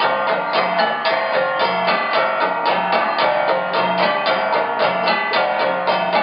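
Music with a quick, even beat, about four to five strokes a second.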